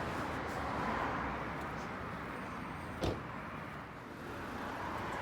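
Steady background road-traffic noise, with one sharp click about three seconds in.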